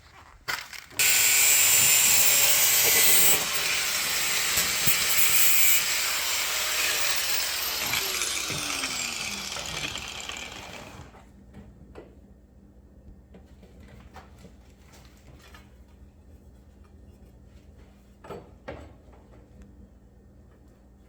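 Handheld power tool used in sheet-metal rust repair, running loud for about ten seconds and loudest in the first two seconds. It then winds down with a falling pitch, and a few faint knocks follow.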